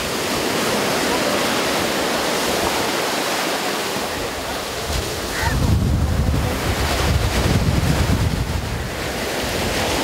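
Sea waves breaking and washing in, a steady surf rush. From about halfway through, wind buffets the microphone with a low rumble that fades again near the end.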